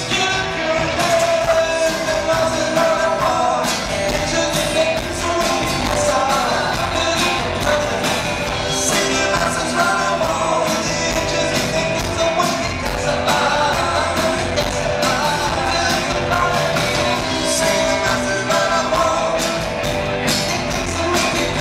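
Live rock band playing a song on acoustic guitar, electric guitar, bass guitar and drums.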